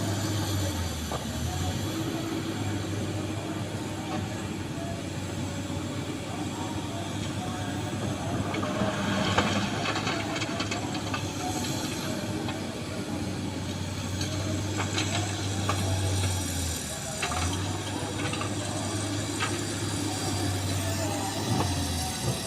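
Excavator's diesel engine running steadily as it works, with hissing and scattered clatters of small stones, busiest about ten seconds in; the engine note drops briefly a few seconds before the end.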